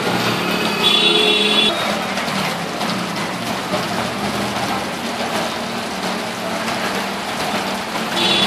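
Vehicle running through a flooded street with a steady engine hum and a wash of water and traffic noise; a horn sounds briefly about a second in.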